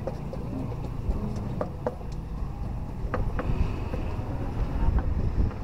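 Outdoor street ambience: a steady low rumble of traffic and wind on the microphone, with a few sharp clicks and knocks scattered through it.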